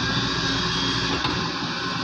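Heavy diesel excavator engine running steadily under work.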